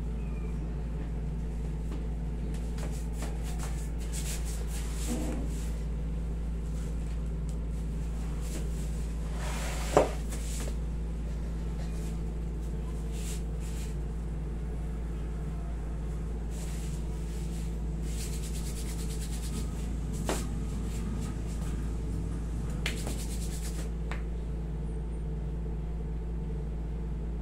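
Hands rubbing and kneading over a person's hair and face during a head and jaw massage, faint under a steady low room hum. There is a single sharp click about ten seconds in, and lighter ticks later.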